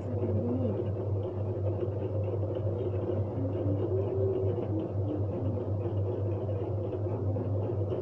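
Steady low hum with faint wavering tones above it, at an even level and with no clear clicks.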